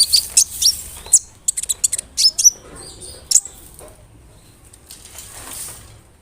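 Olive-backed sunbird (kolibri ninja) singing: a fast run of sharp, high-pitched chirps and quick sweeping notes that dies down after about three and a half seconds to a few soft, faint notes.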